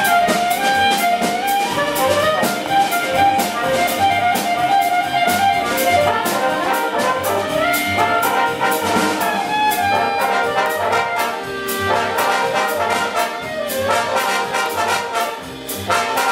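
Jazz big band with saxophones, trombones and trumpets playing a jazz arrangement of a Hakka folk tune, the brass carrying the melody over a steady cymbal beat and walking bass. Near the end the full band swells into a loud chord.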